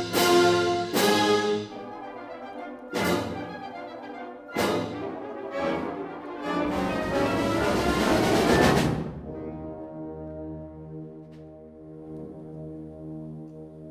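Symphonic concert band playing: several loud, sharply accented full-band chords with brass on top, then a long crescendo that breaks off about nine seconds in, followed by soft sustained chords.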